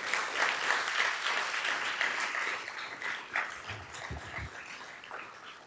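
Audience applause: many people clapping, loudest at the start and gradually dying away.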